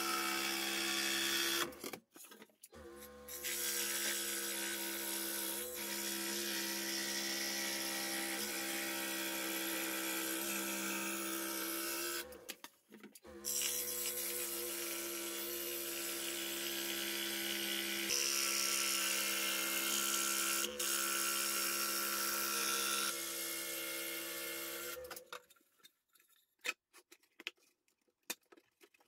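Scroll saw running and cutting through a sheet of plywood: a steady mechanical buzz that drops out briefly twice and stops about 25 seconds in. A few light wooden knocks follow near the end.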